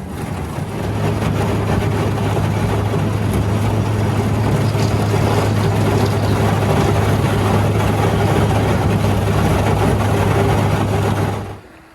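A small fishing boat's motor running under steady throttle, a constant low hum that settles in about a second in, over loud rushing noise from the hull moving through the water. The sound drops off abruptly near the end.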